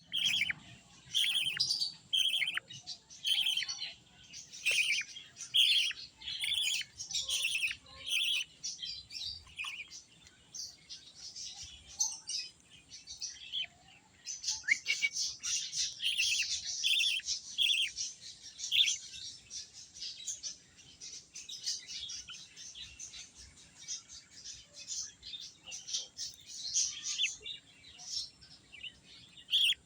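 Baby bird chirping over and over in short, high calls, about two a second at first, thinning out for a few seconds, then coming thick and fast about halfway through.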